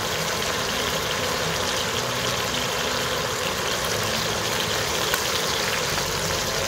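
Chicken pieces and sliced vegetables sizzling steadily in oil on a hot griddle, with one sharp tick about five seconds in.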